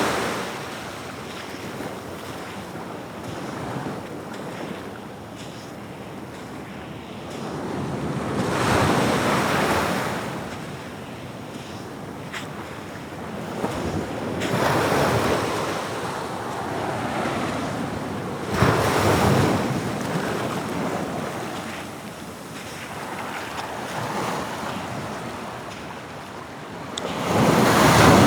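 Atlantic waves breaking on the shore, the surf swelling and falling back every few seconds, the loudest surge near the end, with wind on the microphone.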